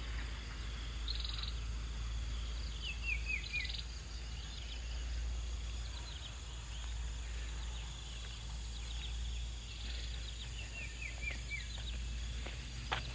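A small bird calling twice, each time a quick run of four or five short falling chirps, with a few short buzzy notes between, over a steady low outdoor rumble.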